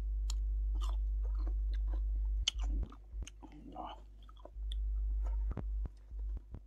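A man chewing food with his mouth close to the microphone, with short wet smacks and clicks throughout. A low hum cuts in and out, on for most of the first two and a half seconds and again for about a second near the end.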